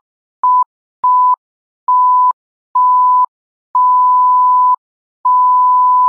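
Countdown beep sound effect: a single steady electronic tone sounding in seven separate beeps with silent gaps, each beep longer than the one before. They go from a short blip to a held tone of over a second near the end.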